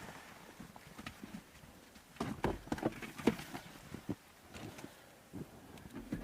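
Footsteps crunching in snow: scattered, uneven steps, with a denser run of them about two to three and a half seconds in.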